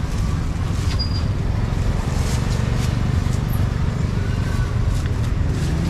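Busy street ambience: a steady low rumble of traffic with scattered light clatter and brief faint chirps or beeps.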